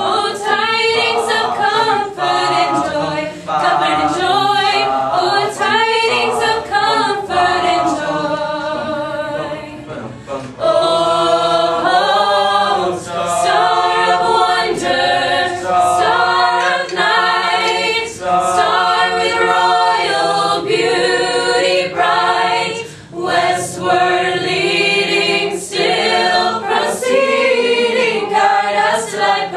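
A mixed choir of teenage voices singing a cappella in harmony, voices only with no instruments, with a brief break between phrases about ten seconds in.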